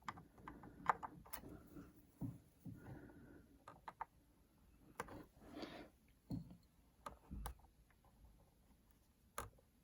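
Faint, scattered clicks and light scrapes of small tools and parts being handled inside an opened iMac.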